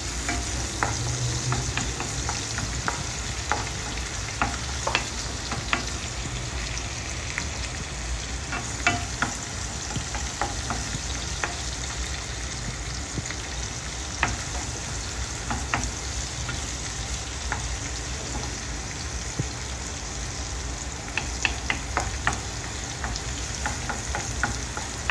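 Chopped garlic and onions sizzling in olive oil in a frying pan as they brown, with a steady hiss. A wooden spatula scrapes and knocks against the pan in short clusters of clicks as they are stirred now and then.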